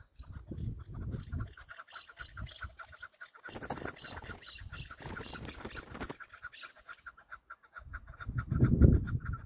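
Chukar partridges calling: a fast, steady run of repeated clucking notes. A burst of hissing noise comes from about three and a half to six seconds in, and a loud low rumble comes near the end.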